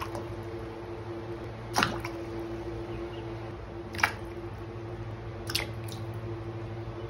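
Whole vegetables (potatoes and carrots) dropped one at a time into a stainless-steel pot of water, each landing with a short splashy plop; three plops, about two seconds apart, over a steady low hum.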